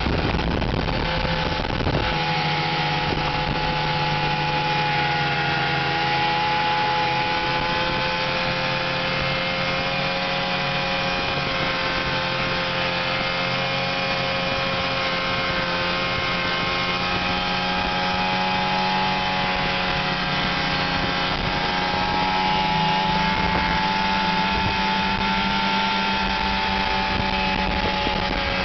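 1998 Ski-Doo MX Z 500 snowmobile's two-stroke engine running at a steady trail speed, its pitch dipping and rising slightly with the throttle.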